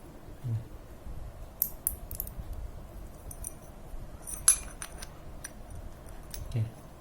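Steel bicycle sprockets and spacers clinking and ticking against each other as they are handled and fitted onto the hub, with a sharper ringing clink about four and a half seconds in.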